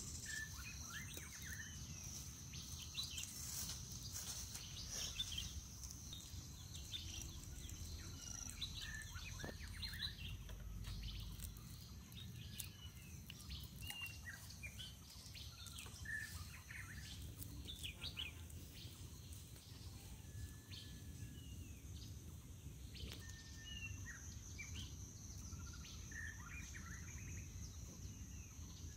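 Quiet outdoor ambience: small birds chirping now and then over a steady high-pitched insect drone, with a few faint clicks and knocks in the first few seconds.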